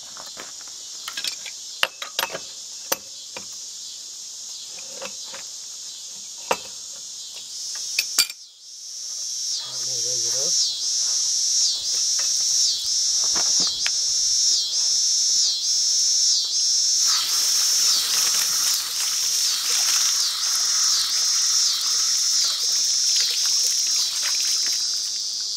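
Insects chirping loudly and steadily in a high buzz. After a break about a third of the way in, the chirping gets louder and pulses about one and a half times a second. Before the break, scattered sharp metal clinks and knocks come from handling the steel drop pipe and tools at the wellhead.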